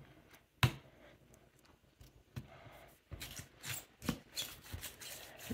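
Hands stretching and squishing slime: irregular sticky clicks and crackles, with a single sharp knock about half a second in.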